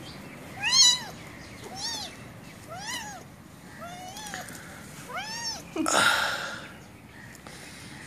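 A young kitten meowing: five short, high-pitched mews about a second apart, each rising and falling in pitch, then a louder, harsh, noisy cry about six seconds in. It is an angry, protesting kitten being handled.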